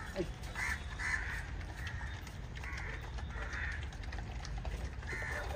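Crows cawing: about half a dozen short, harsh caws at irregular intervals over a low steady background rumble.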